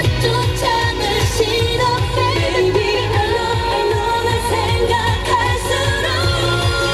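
K-pop song with singing over a steady bass-heavy beat, playing continuously as a dance team's backing track.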